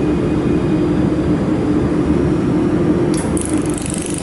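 Laser welding machine running with a steady mechanical hum from its fans, holding one low tone. About three seconds in, a higher hiss starts up and keeps going over the hum.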